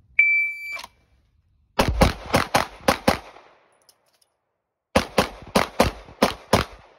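Shot-timer buzzer beeps once as a steady high tone, then a handgun fires a rapid string of about six shots (double taps). After a pause of about a second and a half for the slide-lock reload, a second string of about six shots follows.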